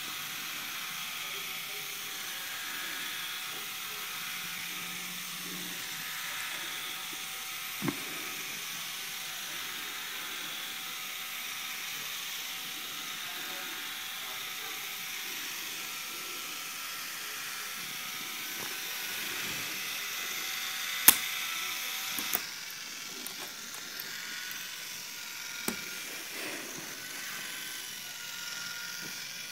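Small K'nex battery motors driving the ride model's gears, running with a steady whirr and a thin whine, with a few light clicks and one sharp click about two-thirds of the way through, after which the whirr thins slightly.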